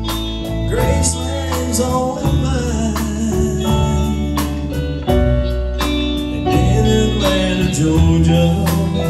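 Live band playing a slow country Christmas song: electric guitars, electric bass, keyboard and a drum kit keeping a steady beat.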